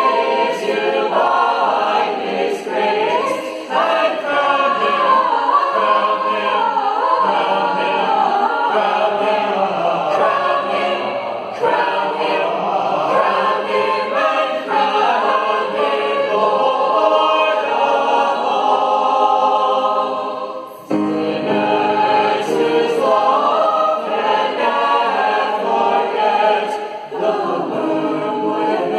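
Many voices singing a hymn together, with a short break between lines about three-quarters of the way through before the singing picks up again.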